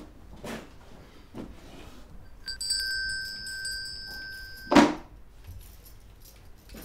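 A bright metallic chime rings on a few steady high tones for about two seconds, then stops with a sudden sharp knock, the loudest sound here. Soft handling knocks come before it.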